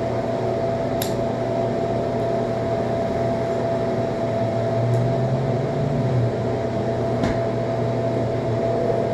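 Steady hum of a ventilation fan with a constant whining tone, and a single sharp lighter click about a second in.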